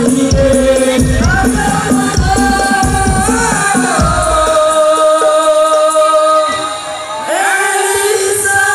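Hadroh ensemble singing sholawat to rebana frame drums. About halfway the drums drop out, leaving voices singing a long, drawn-out melodic line.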